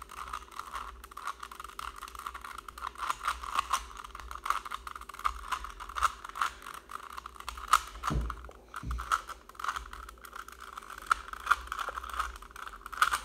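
Rubik's cube being scrambled by hand: its plastic layers turned quickly, a steady stream of fast clicks and clacks, with two dull low bumps a little past the middle.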